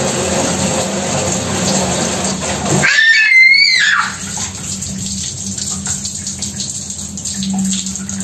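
Running water splashing onto a tiled floor, with a child's high squeal about three seconds in that lasts about a second.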